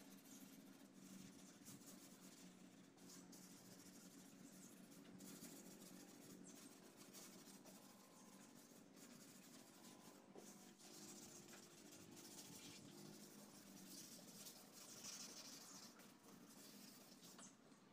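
Faint scratching of fine-grit sandpaper on a hand sanding pad, rubbed back and forth over a primed repair spot on a plastic car bumper.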